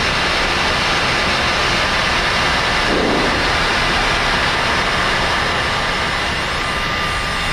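Steady rush of airflow and jet engine noise on the flight deck of a Boeing 747-400 in flight, with a thin steady whine over it.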